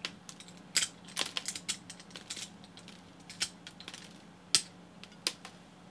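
Grozing pliers nibbing the edge of a piece of stained glass: irregular sharp clicks and crunches as small bits of glass snap off against the jaws, with one louder snap about four and a half seconds in.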